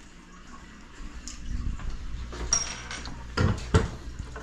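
Dishes and kitchenware being handled: a few separate clinks and knocks, the sharpest a little past three seconds in.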